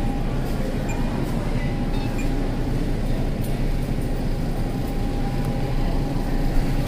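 Steady low rumble and hiss of supermarket background noise in a refrigerated produce aisle, with a faint steady hum and a few light clinks.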